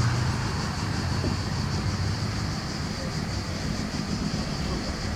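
Motor vehicle engine running, its low steady hum fading during the first second or two, over a steady background of noise.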